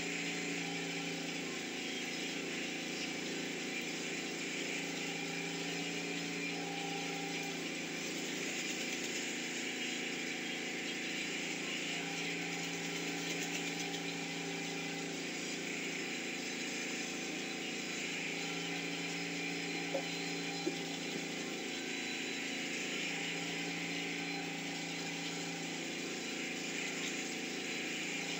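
A steady mechanical hum, like an engine running at idle, with a hiss above it. Two small clicks come about twenty seconds in.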